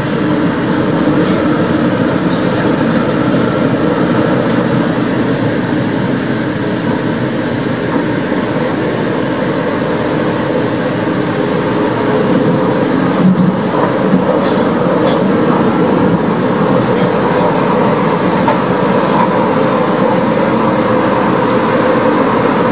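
Madrid suburban electric train heard from inside the carriage, running along the track with a steady rumble of wheels and motors and a thin, high steady whine. There are a few knocks from the wheels about thirteen seconds in.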